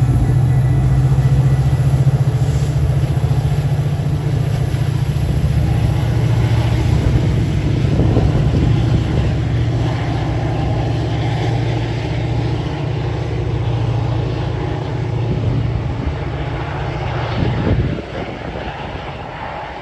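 Diesel locomotive of an EMD F40PH-series engine running hard as the train pulls out, a loud, steady low drone from its prime mover. The drone drops away sharply near the end as the locomotive moves off.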